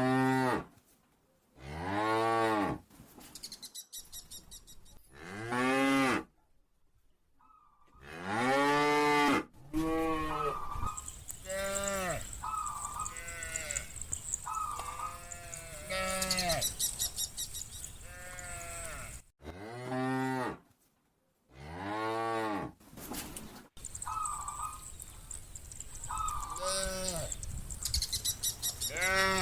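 Cattle in a herd mooing again and again: long moos that rise and then fall in pitch, one after another, with shorter, higher calls in between. The sound cuts out abruptly a few times.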